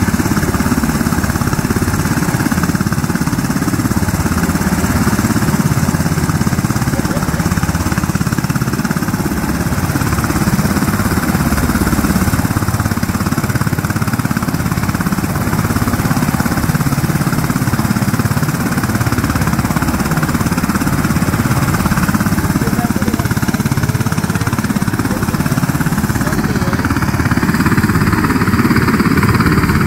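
Black Hawk helicopter running on the ground before takeoff: its twin turboshaft engines and turning main rotor make a loud, steady, rapidly pulsing chop. The sound grows a little louder near the end.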